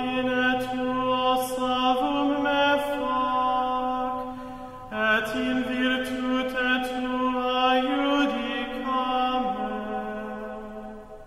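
A voice chanting a Latin prayer in plainchant style, holding long notes and stepping between a few pitches. There is a short break for breath about five seconds in, and the chant fades near the end.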